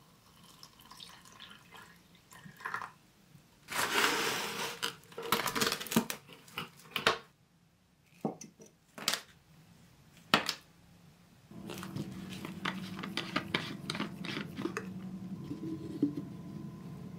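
A run of close-up workbench handling sounds: water poured and splashing into a plastic tub, then a glass clip-top jar clinking as it is handled, with one sharp click. From about two-thirds of the way in, a wooden stick stirs and scoops thick paint-remover gel with small wet, sticky crackles over a low steady hum.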